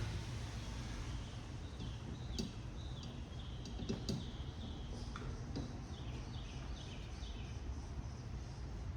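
Steady low electrical hum, with small birds chirping in short falling notes in two runs and a few light clicks.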